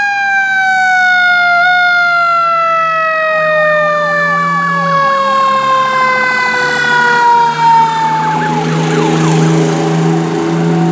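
Fire engine's mechanical siren winding down in one long, slowly falling wail, with a fast-yelping electronic siren over it for several seconds in the middle. Near the end the wail fades and the truck's engine and road noise take over as it goes past.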